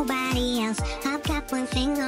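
Background pop song: a deep kick drum beating about twice a second under a bouncing melodic line.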